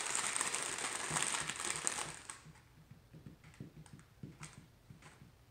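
Lay's Classic potato chip bag being crinkled and handled for about two seconds, then fainter scattered taps and clicks.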